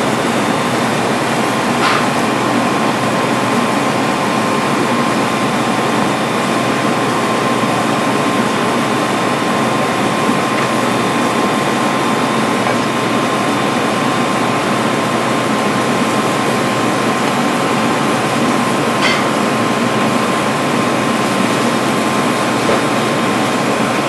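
Steady rushing noise of air-conditioning or ventilation, with a thin steady hum-like tone; two brief clicks, one about two seconds in and one near the end.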